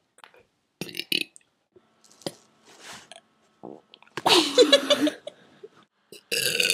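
Deliberate burps from a person: a loud, rough burp with a wavering low pitch about four seconds in, and another starting near the end, with a few small clicks and rustles before them.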